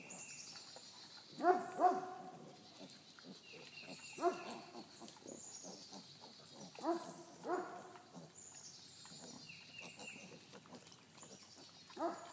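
Young piglets giving short, pitched squealing grunts, a pair near the start and then one or two every few seconds. Faint high chirping goes on behind them.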